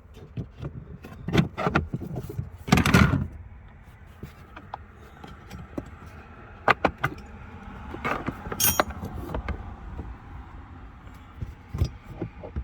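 Clunks, clicks and rattles of the car's factory jack and tools being handled and lifted out of the storage compartment under the trunk floor. There is a louder scraping clatter about three seconds in and a short metallic jingle past the middle.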